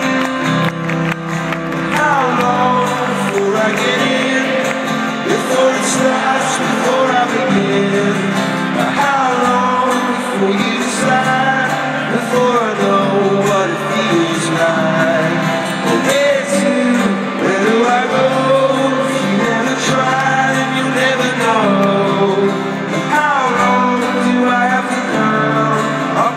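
Live band playing a slow acoustic song: strummed acoustic guitar with a male voice singing, heard through a stadium PA.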